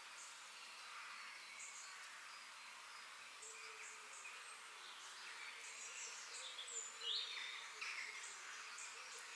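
Forest birds chirping and calling, many short high notes overlapping over a faint steady hiss. About seven seconds in, one louder call sweeps in pitch.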